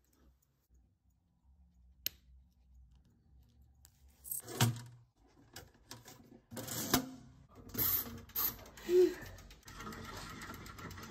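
Small clicks and knocks of metal tools and parts being handled at a workbench. There is a single sharp click about two seconds in, and the clicks come thick and irregular from about four seconds on.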